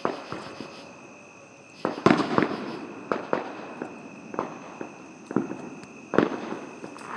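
Firecrackers and fireworks going off in irregular sharp pops and bangs, some close and some farther off, with a loud cluster about two seconds in and another sharp bang just after six seconds.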